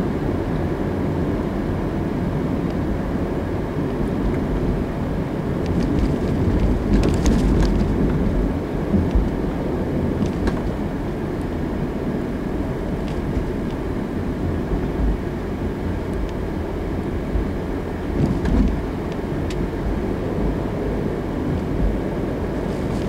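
Steady tyre and engine noise of a car driving at road speed, heard from inside the cabin, with a few faint ticks.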